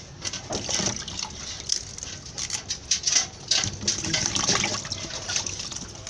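Water splashing and sloshing in a stainless-steel bowl as hands rub and turn pieces of smoked fish to wash them, with small irregular splashes and knocks against the bowl.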